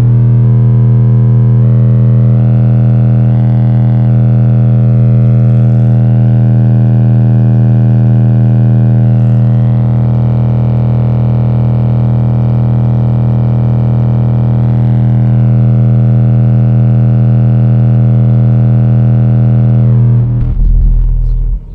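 Car subwoofer driven by a DL Audio Gryphon 1.3200 amplifier, playing a loud, steady 40 Hz test tone with strong overtones while the level is turned up toward clipping for a power measurement. The tone changes briefly and then cuts off just before the end.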